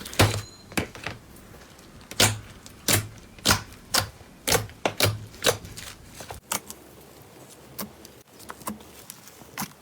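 Slime being squeezed and worked by hand, giving off a run of sharp clicking pops, about two a second, that grow fainter and sparser after the middle.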